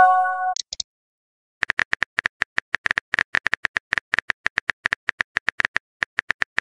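Texting-app sound effects: a short message chime right at the start, then after a second's pause a long run of quick, evenly spaced keyboard typing clicks, several a second, lasting about four and a half seconds.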